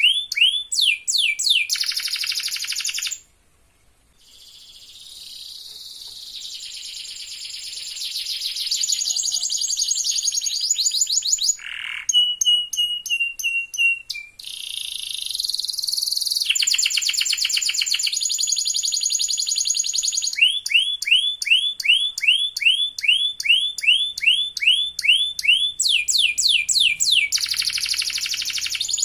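Domestic canary singing: fast runs of repeated high notes and buzzy trills, broken by a brief silence about three seconds in. Later comes a run of rising chirps at about three a second.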